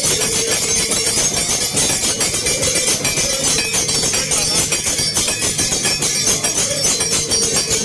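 Loud festival crowd noise: dense, rapid rattling and clinking percussion with a steady held note running through it.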